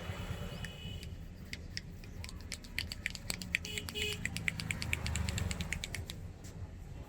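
Indian head massage: a quick, uneven run of sharp clicks and taps from the barber's hands working the head and hair. It starts about a second and a half in, is densest in the middle and dies away near the end.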